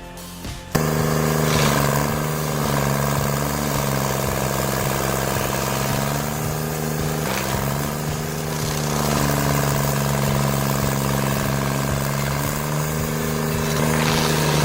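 A machine's engine running steadily, with a brief dip in pitch about seven seconds in. It starts abruptly just under a second in.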